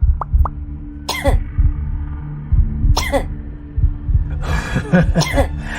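Several coughs: one about a second in, another around three seconds, and a cluster near the end, over background music with a steady low beat.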